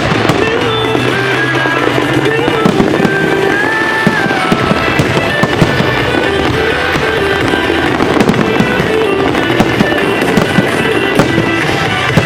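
Fireworks going off in frequent sharp bangs and crackles, over music that plays throughout.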